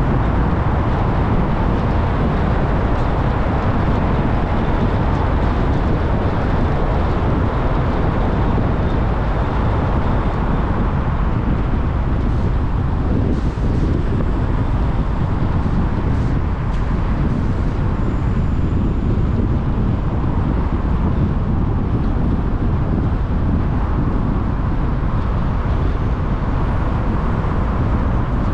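Steady noise of a car being driven, mostly a low rumble with no changes in pace.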